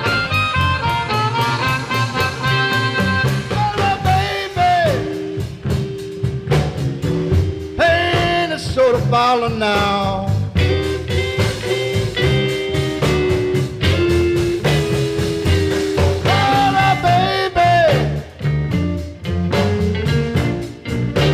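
Blues band playing an instrumental break: harmonica, electric guitar, upright bass and drums, with notes bent in pitch several times.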